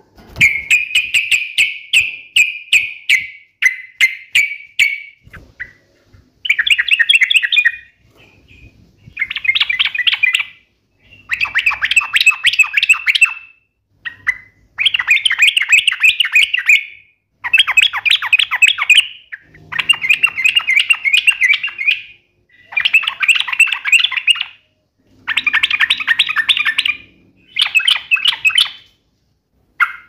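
Yellow-vented bulbul (trucukan) singing in repeated bursts of rapid, sharp chattering notes, each burst lasting one to three seconds with short pauses between.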